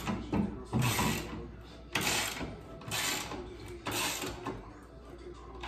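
Ratchet wrench being worked on the bolts of a metal TV wall-mount bracket: rasping ratchet strokes about once a second, weaker near the end.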